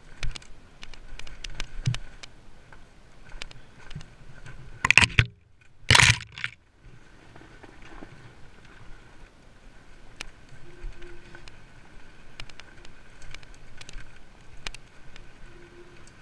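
Dirt bike ridden along a rough forest trail, heard muffled through the camera's housing: a steady faint engine whine under frequent clicks and rattles from the bumps. Two loud bursts of noise about five and six seconds in.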